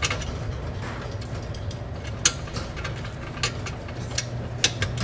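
Scattered sharp metal clicks and clinks, about half a dozen at uneven intervals with the loudest a little past two seconds in, as a bolt and stacked washers are fitted by hand to the car's underbody X-brace. A low steady hum runs underneath.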